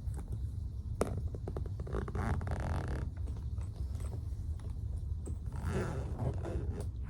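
A suitcase being zipped shut: a zipper drawn along in stretches, with scraping and scattered handling knocks over a low steady rumble.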